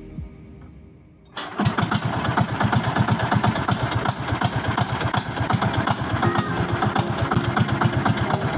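A small outrigger boat's engine starts abruptly about a second in and then runs steadily with a rapid, even firing beat.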